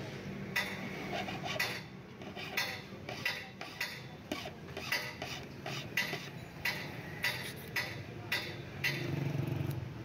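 Steel hand file rasping across a metal key in short, repeated strokes, about one to two a second, cutting the key's notches by hand.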